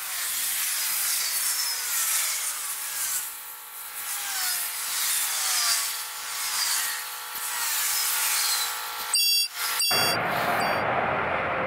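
Freight train wheels squealing and screeching against the rails as the train creeps over badly maintained track, a run of repeated falling squeals over a steady hiss. About ten seconds in it changes abruptly to a fuller, lower rumble of cars rolling past close by.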